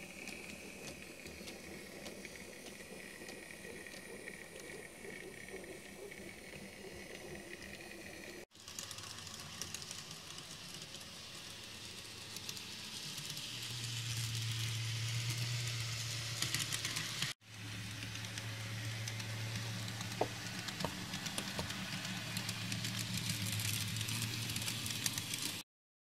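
N gauge model trains running on the layout: a small locomotive motor whining and wheels clicking and rattling over the track, with a steady low hum in the later shots. The sound cuts off abruptly twice as the shots change, and stops near the end.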